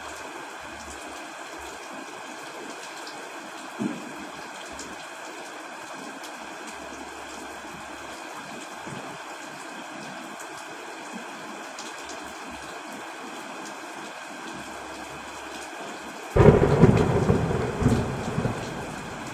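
Steady heavy rain, with a brief low thump about four seconds in. Near the end a loud thunderclap hits suddenly and rumbles away over about three seconds.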